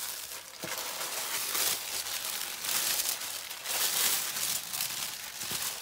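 Thin pink wrapping crinkling and rustling as hands unfold it to uncover the contents, swelling louder several times.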